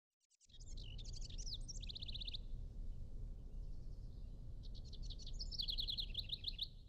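Small birds chirping and trilling in two quick spells, over a steady low rumble of background ambience.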